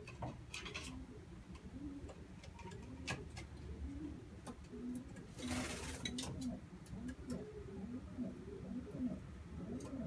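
Racing pigeons cooing over and over in a loft, with scattered sharp clicks and a brief rustle a little past halfway.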